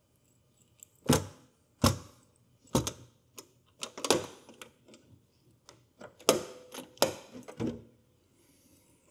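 Key-lockable metal latches on the side of an EG4 18kPV inverter's front cover being unlocked and flipped open: a series of sharp metallic clicks and clunks, about eight in all, in two bunches a couple of seconds apart.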